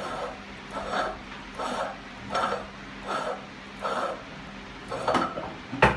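Rhythmic metallic clinking from opening the lid of an LCD-refurbishing autoclave (bubble remover), about one clink every 0.7 seconds, ending in a sharp clack near the end. A faint steady hum from the running machine sits underneath.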